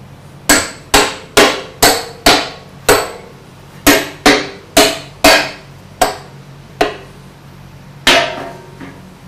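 Hammer knocking loose the steel dogs that clamp a ship's bulkhead hatch door to its coaming: about a dozen sharp, ringing metal blows, in quick runs at first and then more slowly spaced.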